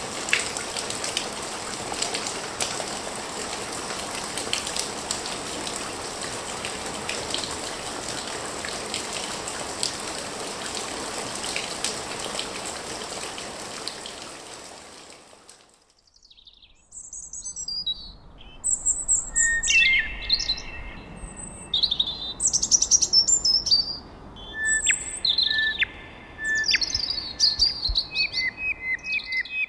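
A steady crackling hiss with scattered clicks, fading out about halfway. After a brief pause, birds sing and call in quick, varied chirps, falling sweeps and short whistled notes.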